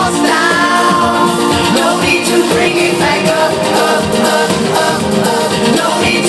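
Loud live pop music over a concert sound system, with a sung vocal line over it.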